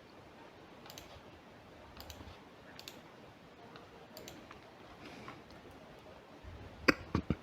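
Sparse, isolated clicks of computer keys being pressed, about one a second, with a quick cluster of clicks near the end, over quiet room tone.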